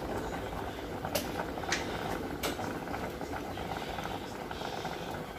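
A pot of chicken steaming and simmering on the stove, a steady bubbling hiss, with three short sharp clicks in the first half.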